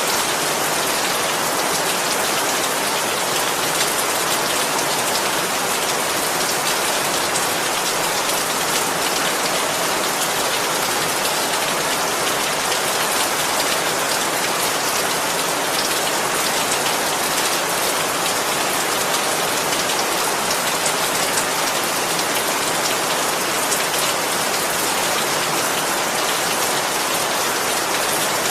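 Steady rain falling, with drops pattering on a surface; an even, unbroken rush with no thunder.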